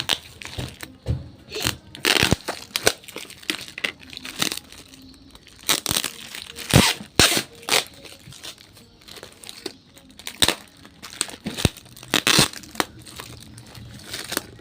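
Toy packaging being crinkled and torn open by hand in irregular bursts of rustling and ripping.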